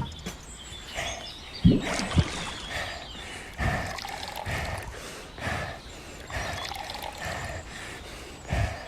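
Water pouring in repeated spurts, about one a second.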